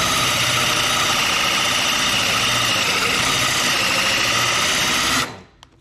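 Cordless drill driving a large hole saw into a kitchen worktop: the motor runs steadily under load as the saw teeth cut, then stops abruptly a little over five seconds in.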